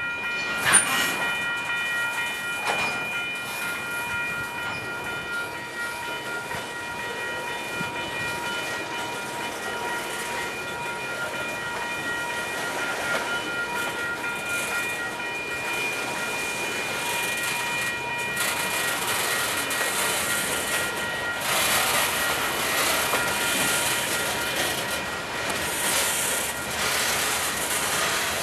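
Freight cars rolling slowly past, wheels clacking over the rail joints, under a steady high ringing of several pitches that partly drops out about eighteen seconds in. The rolling noise grows louder near the end.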